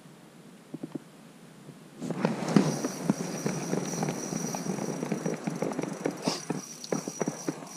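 Close handling noise: a jacket's fabric rustles and scrapes right against the microphone in a dense run of crackles and knocks starting about two seconds in. A thin, steady high whine runs above it until near the end.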